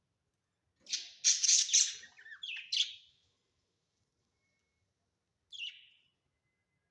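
Budgerigars chirping: a burst of rapid, high chirps about a second in that lasts about two seconds, then a single short chirp near the end.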